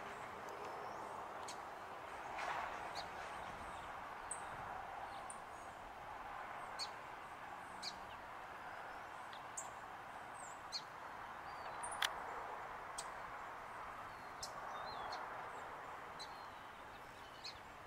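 Songbirds giving short, scattered high chirps and little slurred calls over a steady background hum, with one sharper tick about two-thirds of the way through.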